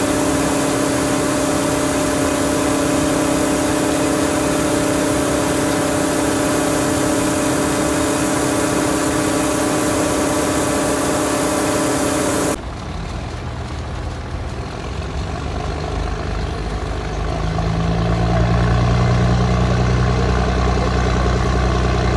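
Gravel pouring off a loading conveyor onto a heaped barge load: a steady hiss of falling stones over a steady machine hum. About twelve seconds in the sound cuts to a diesel engine running with a low note, growing louder a few seconds later.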